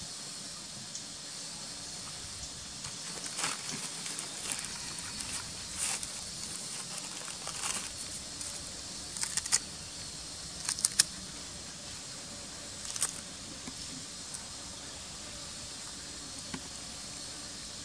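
Scattered short crackles and clicks over a steady hiss, clustered in the middle and loudest about two-thirds of the way through.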